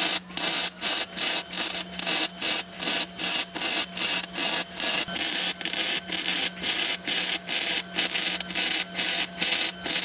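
Welder spot welding a new sheet-metal floor panel into rusty metal: short crackling bursts of arc, about three a second, in an uneven stop-and-go rhythm.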